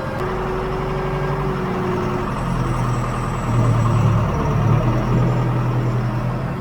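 John Deere 410 backhoe loader's diesel engine running steadily, getting louder for about a second and a half around the middle as it works harder.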